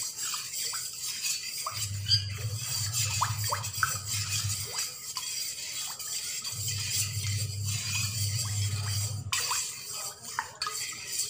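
A metal spoon stirring liquid in a steel bowl, with light scrapes and clinks against the steel and swishing water. A low hum comes and goes twice in the background.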